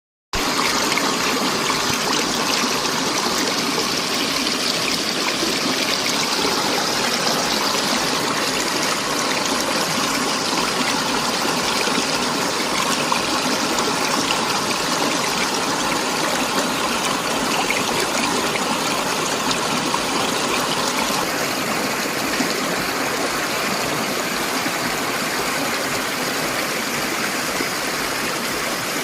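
River water flowing with a steady rushing sound that softens slightly in its higher hiss about two-thirds of the way through.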